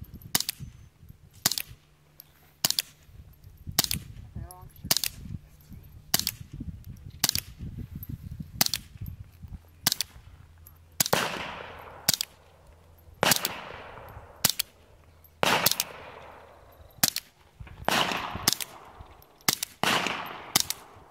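Suppressed .22 LR short-barreled rifle fired in steady semi-automatic, one sharp, muted shot about every second, some twenty shots in all. Several of the later shots trail off in a brief hiss.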